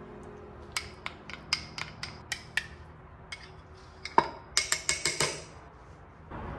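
Metal spoon clinking against a small glass bowl while stirring a thick, creamy sauce: irregular light taps, with a quick run of louder clinks about four to five seconds in.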